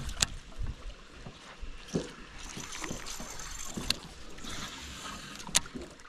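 Water lapping and gurgling against the hull of a bass boat, with three sharp clicks from handling the rod and baitcasting reel, the loudest near the end.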